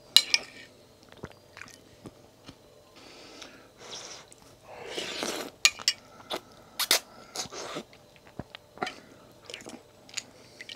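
A person eating instant ramen noodle soup from a bowl held at the mouth: wet chewing and smacking with many sharp clicks, and a longer slurp of noodles and broth about halfway through.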